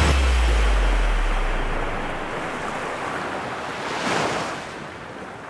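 Sea waves breaking and washing on the shore, a steady rushing surf with one wave swelling up about four seconds in before the sound fades out. The last low note of the music dies away in the first couple of seconds.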